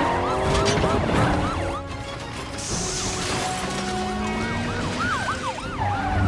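Several police car sirens sounding at once in fast rise-and-fall sweeps, over the rumble of car engines revving.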